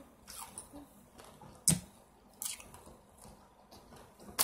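Quiet chewing of Doritos Dinamita rolled tortilla chips: a few scattered wet clicks and crunches, the loudest a little under two seconds in.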